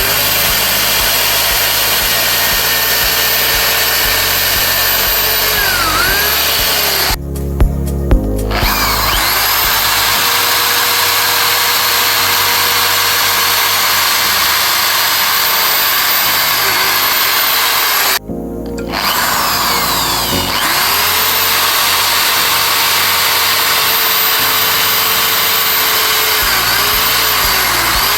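A high-speed electric power tool cutting wood. Its motor whine dips briefly in pitch now and then under load, and it stops for a moment twice. Background music with a stepping bass line plays along.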